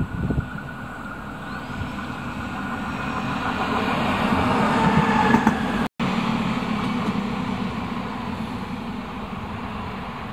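Stadler Regio-Shuttle RS1 diesel railcars running, the engine and rail noise growing louder as the train approaches. After a sudden break about six seconds in, the sound of the receding train fades slowly.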